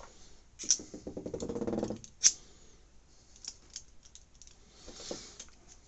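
Klein 11-in-1 magnetic screwdriver being handled: light clicks and ticks of its parts, with one sharp snap a little over two seconds in, which is the tactile detent of its ring seating over the dimples.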